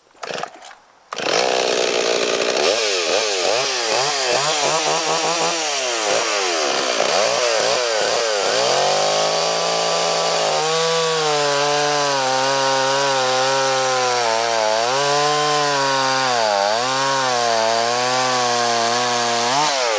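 Chainsaw starting suddenly about a second in and running at high speed, its pitch swooping up and down as it is revved. It settles into a steadier pitch with small dips as it cuts through a log.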